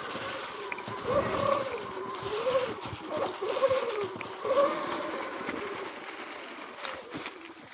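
Sur-Ron X electric dirt bike's motor whining, its pitch swinging up and down again and again as throttle and speed change, over the rustle of tyres on leaf-covered dirt and a few knocks from the bike over bumps.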